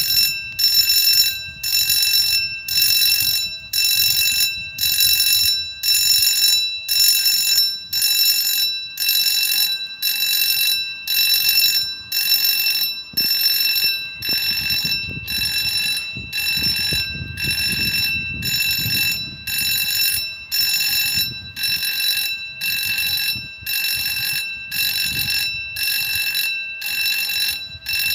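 Level-crossing warning bell ringing in even strokes, about one a second, as the crossing's red light shows, the signal that a train is approaching.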